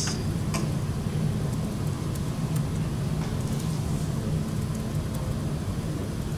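Steady low room hum, with a couple of faint clicks near the start.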